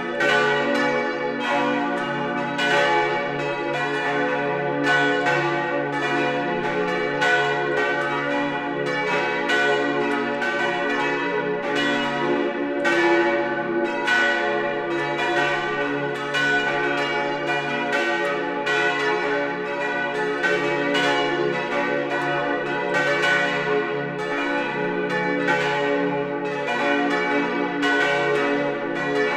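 Full peal of a parish church's five swinging bronze bells, the four main bells tuned to D, F-sharp, A and B, the largest weighing about 1,480 kg. Their strikes overlap continuously at an even loudness.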